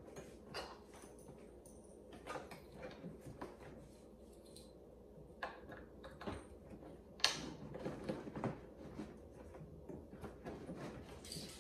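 Scattered light clicks and knocks of plastic parts being handled as the handle and power cable of a Sun Joe electric lawn mower are fitted together during assembly, with one sharper click about seven seconds in.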